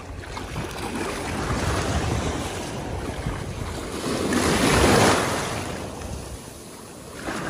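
Shallow surf washing and splashing, with a louder surge of water about four to five seconds in, and wind rumbling on the microphone.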